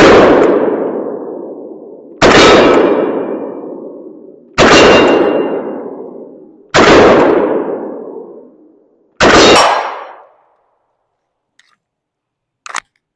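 Five 9mm pistol shots from a Springfield Hellcat Pro, fired slowly about two and a half seconds apart, each blast followed by a long ring-out lasting about two seconds. A small click near the end.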